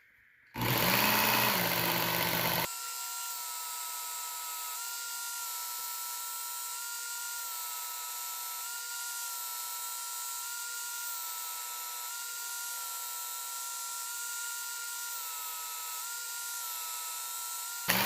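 Work Sharp Ken Onion belt knife sharpener running with a steady whine while a knife is ground on the 1,000-grit belt to polish out the coarser 220-grit scratches. It is louder for the first two seconds, then settles, its pitch shifting slightly about every two seconds over repeated passes, and it stops just before the end.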